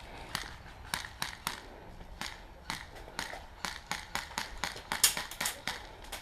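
Airsoft guns firing single shots, a string of sharp snaps at irregular spacing over a steady hiss, the loudest cluster about five seconds in.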